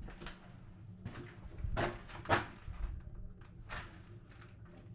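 Footsteps and scuffs on the litter-strewn floor of a railcar: a few irregular crunches and knocks, the loudest about two seconds in, over a low rumble.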